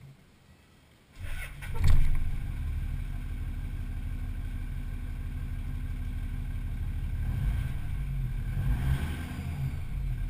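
Toyota Land Cruiser HDJ80's turbo-diesel straight-six cranking and catching about a second in. It flares up loudly once, then settles into a steady idle with a low rumble, swelling slightly near the end.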